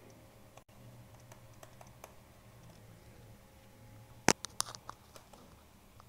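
Faint taps and clicks of a stylus writing on a pen tablet, with one sharp click about four seconds in and a few quicker, smaller ones after it. A low steady hum runs underneath.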